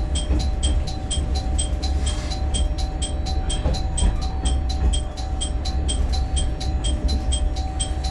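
Diesel railcar running slowly with a steady low rumble, under a rapid string of high electronic dings, about four a second, like a chime or alarm.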